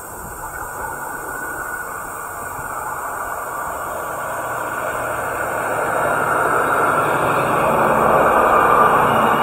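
Single-car ET122 diesel railcar approaching along the track, its running noise getting steadily louder as it nears.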